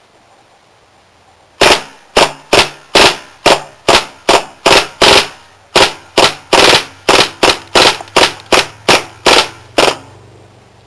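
Gas-powered Mac11 airsoft submachine gun firing about twenty sharp shots in quick succession, a few per second. The shooting starts about a second and a half in and stops shortly before the end.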